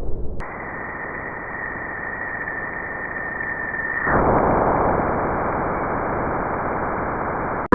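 Sonified spacecraft recording of space radio and plasma waves, played as sound: a dense hiss with a steady high tone over it for about four seconds, after which the tone stops and the hiss gets louder. It cuts off abruptly near the end.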